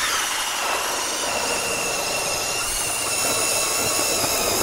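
24-volt electric ice auger starting suddenly and drilling steadily through thick lake ice: a steady motor whine over a noisy grinding hiss.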